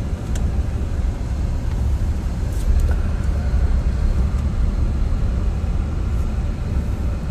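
A vehicle driving slowly, heard from inside the cab: a steady low rumble of engine and road noise.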